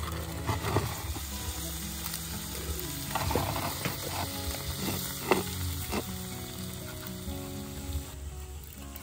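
Roasted chickens sizzling on a hot metal tray as it is slid out of a clay wood-fired oven, with a few scrapes of the tray against the oven floor. Soft background music plays underneath.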